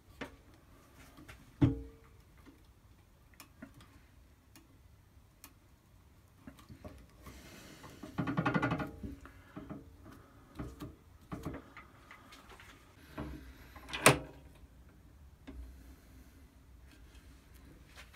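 Metal clicks and knocks from a drill press's chuck and quill being handled by hand. There is a sharp knock with a brief ring about a second and a half in, a short rattling burst about halfway through, and a sharp click a few seconds before the end.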